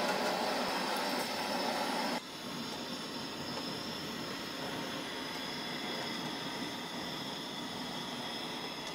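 Steady rushing noise with no clear source; it drops in level suddenly about two seconds in and then runs on evenly.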